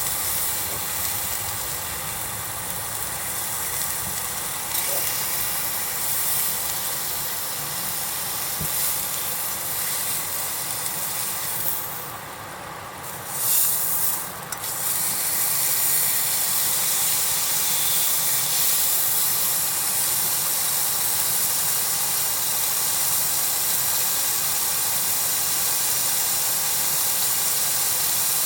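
Food sizzling steadily on a hot iron griddle over a campfire, an even hiss that briefly drops away and returns about halfway through.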